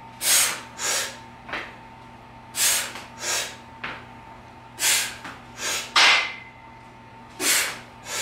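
A lifter's forceful breathing during barbell forward lunges: strong breaths in and out through the mouth, in pairs about every two and a half seconds, one pair per rep. A sharper, louder burst comes just after six seconds.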